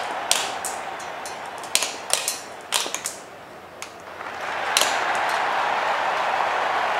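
Glass marbles clicking and clattering against one another and the plastic bowl and track as they drop onto a toy football pitch and roll: a string of sharp clicks in the first five seconds. Under them runs a crowd noise of applause that fades a few seconds in and swells back near five seconds, as a goal is scored.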